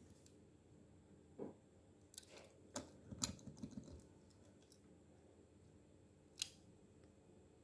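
Faint clicks and light taps from a small die-cast toy car being turned over and set down on a wooden tabletop. A soft knock comes about a second and a half in, a cluster of clicks follows over the next two seconds, and one more sharp click comes near the end.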